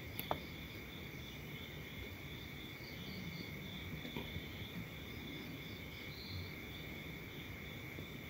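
Faint steady chirring of crickets, left in the open after the radio's DRM audio has dropped out on a lost signal. A single light click comes just after the start.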